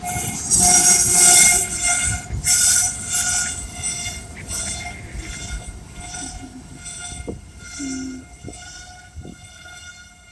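Freight cars of a CSX train rolling slowly past, their braking wheels giving a steady high squeal as the train stops. A loud rush of rolling noise in the first few seconds fades as the last cars go by.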